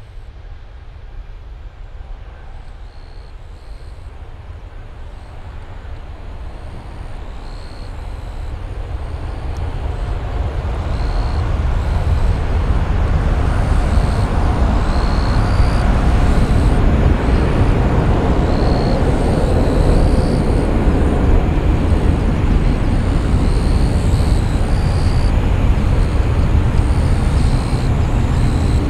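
Boeing 777-200's two jet engines at takeoff thrust as the airliner climbs away: a deep, loud rumbling noise that swells over the first dozen seconds, then holds steady.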